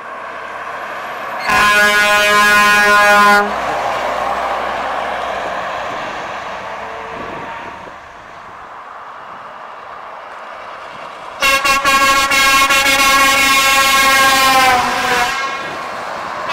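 Truck air horns: a Renault Magnum lorry sounds a loud chord-like air horn for about two seconds shortly after the start, followed by the noise of the truck going by and fading. Near the end another truck's air horn blares for about three and a half seconds, starting with a few quick stuttering toots and sagging slightly in pitch as it stops.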